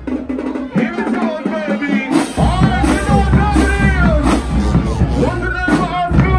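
Marching band playing live, brass and drumline, with the deep low brass and bass drums dropping out at the start and coming back in strongly about two and a half seconds in. Crowd voices are mixed in.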